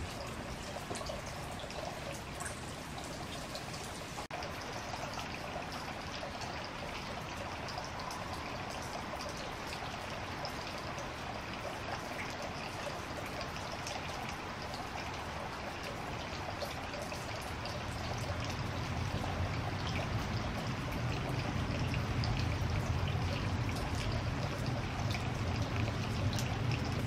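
Steady rain falling on wet gravel and puddles, with many small drop ticks, and rainwater running from a roof downspout. About two-thirds of the way through a louder, deeper pouring comes in.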